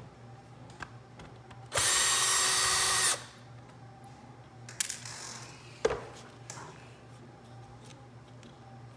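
Electric drill driving out a small screw from a calculator's plastic case, its motor running steadily for about a second and a half. A few light clicks and a knock follow as the screw and case are handled.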